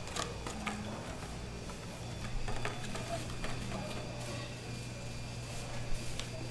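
Light clicks and taps of clear plastic takeaway containers being pulled from a stack and set down on a plastic cutting board, a few scattered knocks, over a steady low hum.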